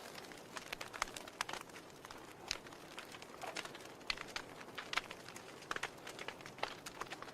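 Wood fire burning in a fireplace: logs crackling and popping in irregular sharp snaps over a soft steady hiss.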